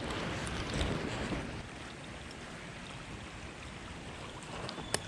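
Creek water running steadily, a little louder for the first second and a half, with one sharp click near the end.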